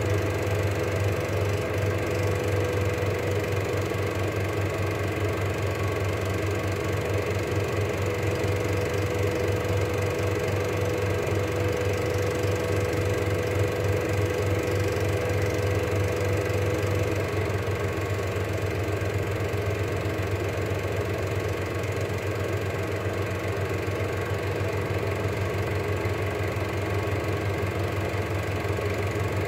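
Cine film projector running: a steady motor hum with a fast, even ticking of the film transport, and a faint whine that fades a little over halfway through.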